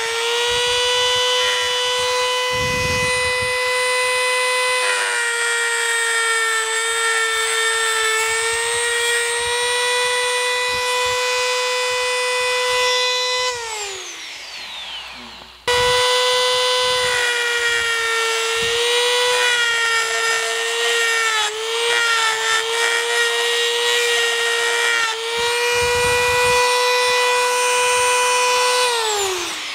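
Rotary tool spinning an EZ Thread 60-degree diamond-coated burr against the damaged threads of a threaded plug, a steady high whine whose pitch dips slightly as the burr bites into the metal. It spins down about halfway through, comes back on at full speed after a short lull, and spins down again near the end.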